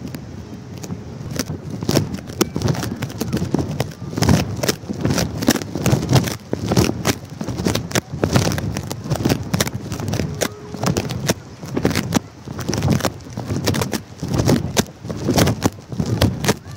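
Wind buffeting the microphone of a phone duct-taped to a flying kite, with irregular crackling knocks and rustling.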